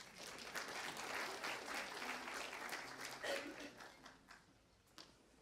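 Audience applauding, fading out after about four seconds, followed by a couple of light knocks near the end.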